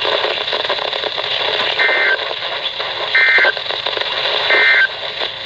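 Weather radio receiver sounding three short SAME digital data bursts about 1.4 s apart, each a brief two-tone buzz, over steady radio static. Bursts this short are the end-of-message code that closes an alert.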